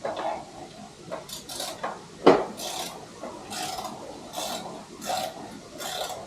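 A sharp metallic click about two seconds in, then a ratchet wrench being worked back and forth on a bolt under the motorcycle's front fairing, short rasping strokes about once a second.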